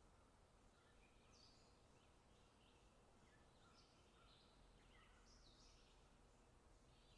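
Faint chirping of small birds: many short, high calls, some overlapping, over a low steady hiss.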